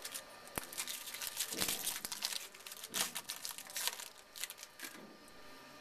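Foil wrapper of a Bowman Chrome baseball card pack crackling and crinkling as it is handled and torn open, a dense run of sharp crackles lasting about four and a half seconds.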